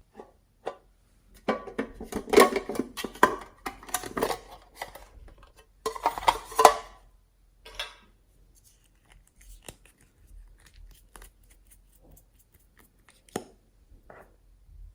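Slime being handled and mixed: two dense bursts of crackling clicks, then scattered softer clicks and a sharper click near the end.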